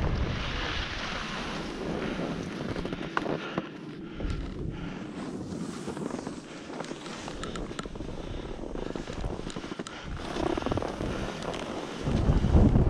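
Skis sliding and scraping over groomed snow on a downhill run, with wind buffeting the camera's microphone. The wind rumble drops for a while in the middle and comes back in a strong gust near the end.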